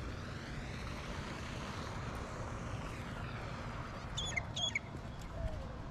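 Two short high-pitched bird chirps a little past four seconds in, over a steady outdoor rushing noise with a low rumble.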